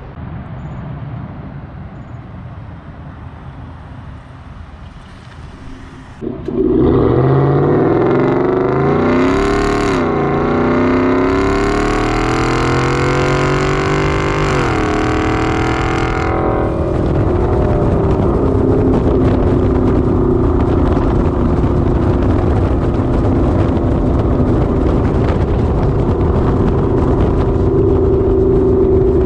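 Ford F-150's 5.0 V8 through a Corsa Xtreme exhaust, rumbling low at first. About six seconds in the truck takes off hard, the exhaust note climbing in pitch, dipping at a shift, then climbing again. It then settles into a steady cruising drone.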